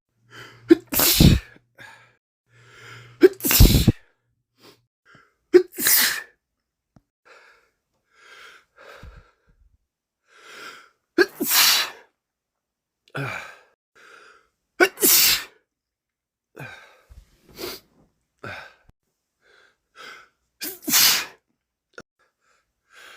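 A man with a head cold sneezing over and over in a sneezing fit: about half a dozen loud, sharp sneezes spaced a few seconds apart, with sniffles and quick in-breaths between them.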